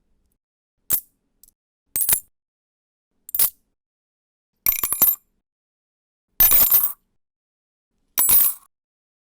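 A series of separate coin-drop sound effects with silence between them: short clinks of a coin or two landing early on, then denser jingling spills of several coins, each about half a second long, the last two the loudest.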